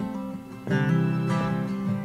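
Acoustic guitar strumming chords with a bowed fiddle, the instrumental intro of a folk song before any singing. A chord is struck at the start and another less than a second later, each left ringing.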